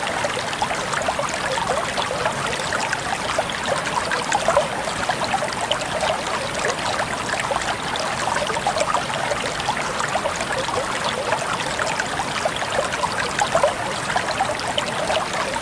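Water running steadily, with a constant babble of small splashes and trickles, like a stream flowing over stones.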